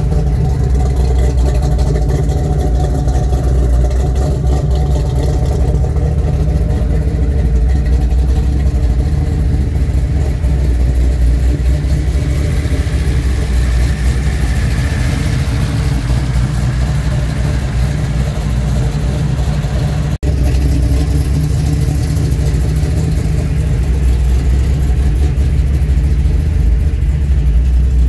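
Chevrolet 400 cubic-inch small-block V8, fed by twin Edelbrock carburetors and exhausting through long-tube headers into a straight exhaust, idling steadily. A brighter hiss swells and fades through the middle, and there is a momentary gap about twenty seconds in.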